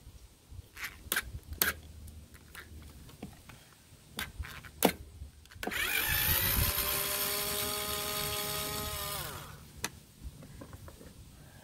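Small cordless electric screwdriver backing out a bolt from a Briggs and Stratton mower engine: its motor whine rises, holds steady for about three seconds, then winds down. A few light clicks and taps of handling come before it.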